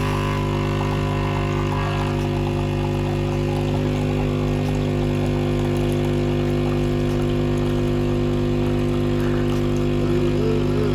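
Nescafé Dolce Gusto Mini Me capsule coffee machine's vibration pump running as it brews, a steady buzzing hum, with coffee streaming into a metal travel mug.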